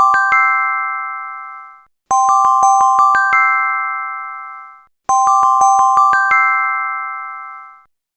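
Samsung phone alarm tone looping: a quick run of bell-like chiming notes ending on a note that rings out and fades, the phrase starting over every three seconds.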